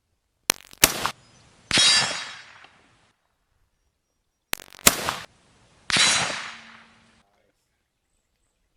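Two rifle shots, each followed about a second later by a hit on a distant steel target that rings and fades over about a second.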